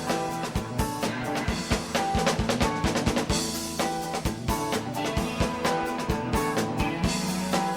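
Live band playing an instrumental passage: a drum kit beating steadily and busily under sustained pitched instruments.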